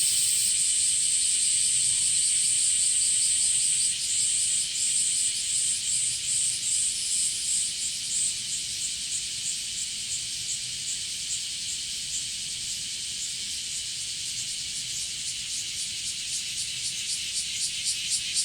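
Blackish cicadas singing: a loud, high sizzling drone, steady for the first four seconds. It then breaks into a pulsing, wavering song that eases off through the middle and swells again with quick pulses near the end.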